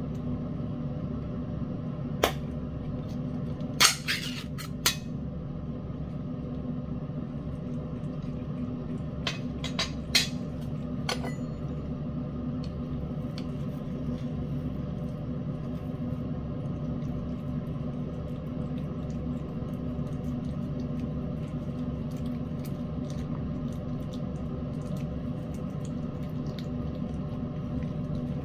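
A metal utensil clinking and scraping against an open tin can of cat food pâté, a few sharp clicks in short clusters, over a steady low hum; after that only faint small ticks.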